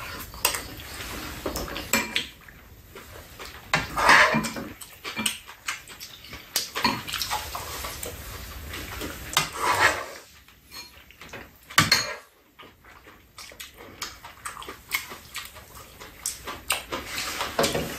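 Metal chopsticks and spoons clicking and scraping against bowls and a metal serving tray, with chewing and slurping of two people eating.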